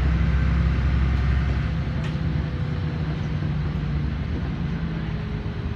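LiAZ 5292.21 city bus heard from inside the cabin while under way: a low diesel engine hum with tyre and road noise, slowly getting quieter over a few seconds.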